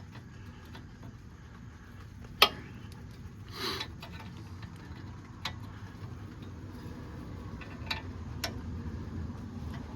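Scattered metal clicks and ticks of a brake caliper pin bolt being fiddled into its thread by hand. One sharp click about two and a half seconds in, and a short scrape a second later.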